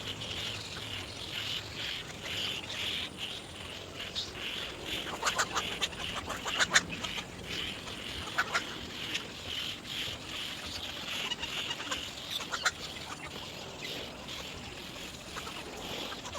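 Little egrets at the nest giving harsh, rapid clucking calls in a few short bursts, over a steady pulsing chirr of insects.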